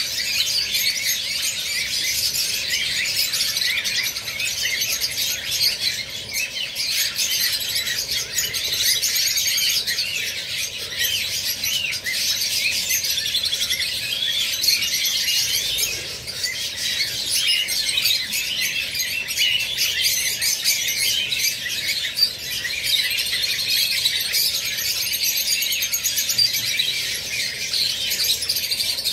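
A flock of rosy-faced lovebirds chattering: a dense, continuous stream of many overlapping high-pitched chirps and squeaks.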